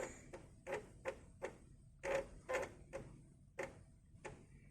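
Amiga 500's internal 3.5-inch floppy drive reading a disk: about ten short, irregularly spaced clicking and buzzing bursts as the head steps between tracks while loading.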